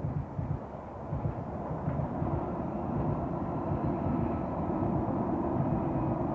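Distant train rumble from a Greater Anglia Class 745 electric multiple unit running past. A steady hum joins the rumble about two seconds in and grows slightly louder.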